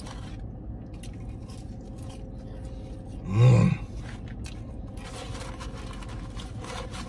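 A man eating McDonald's french fries: faint chewing and rustling of the paper fry carton, with one short voiced murmur about three and a half seconds in, over a steady low hum inside the car.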